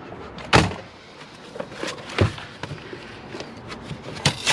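Scrap electronics being handled and set down in a car's cargo area: a sharp clunk about half a second in, another about two seconds in, and lighter knocks and rustling of gloved hands and cardboard between.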